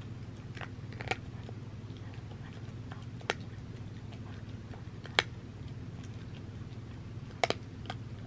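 Cat eating from a glass bowl: soft chewing and licking with about half a dozen sharp clicks spread through, two of them close together near the end.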